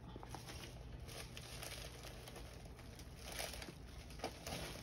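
Faint rustling and crinkling of plastic-sleeved cross-stitch kits being handled and stacked, with a few soft knocks.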